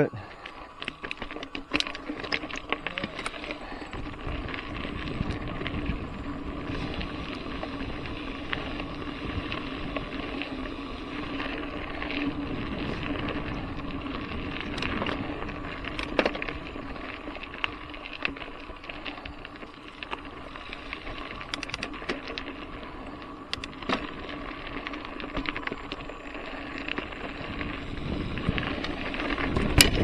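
Trek Fuel Ex 7 mountain bike being ridden along a dirt singletrack: tyres rolling over dirt and loose stones, with frequent small clicks and rattles as it goes over bumps.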